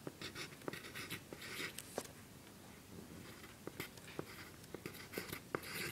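A pen writing numbers on grid paper: a series of short scratching strokes with small taps as the tip lifts and lands.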